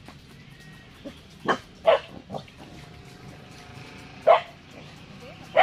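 A dog barking in short single barks: a quick run of three about a second and a half in, then two more spaced out toward the end.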